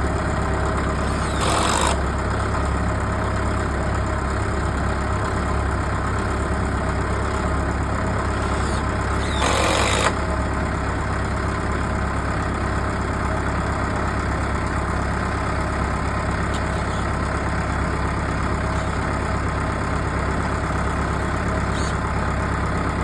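Mahindra tractor's diesel engine running steadily at idle, with two short louder surges, one early and one about ten seconds in.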